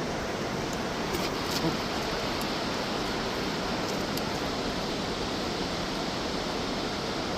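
Steady rush of fast-flowing river water, an even roar with no breaks or gusts.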